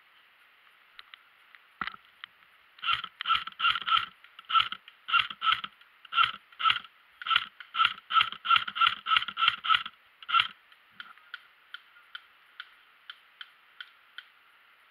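Airsoft replica firing a string of single shots: loud sharp snaps, about two to three a second at uneven spacing, for some seven seconds. Fainter, more regular clicks follow near the end.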